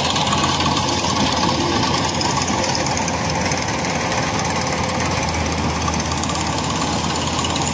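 Rice combine harvester running close by as it moves through the paddy: its diesel engine and header machinery make a steady, loud mechanical din.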